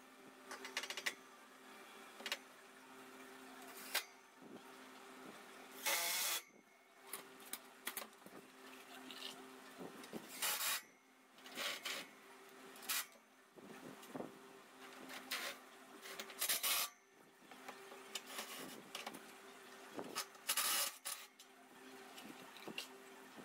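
Irregular scraping and rasping of hand-tool work on metal, in short bursts, over a steady low hum.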